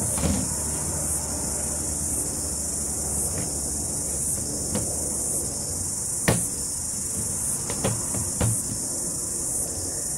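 The upturned plastic lid of a polypropylene rubbish bin being pressed and snapped down onto the bin's rim, giving a few sharp plastic clicks and knocks. The loudest comes about six seconds in, with others near the start and around eight seconds. A steady high-pitched insect chorus runs underneath.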